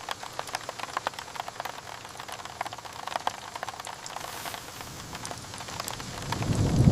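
Rain pattering in scattered small drops over a faint hiss, with a low rumble of thunder starting to swell near the end.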